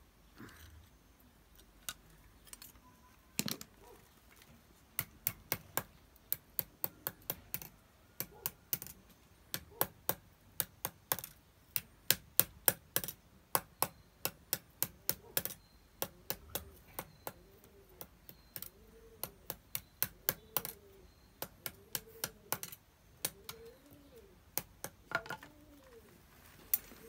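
Sharp metal taps, two or three a second, as a hand tool strikes a twisted wire on a wooden stump; the taps thin out after about sixteen seconds. Faint short low calls repeat in the background during the second half.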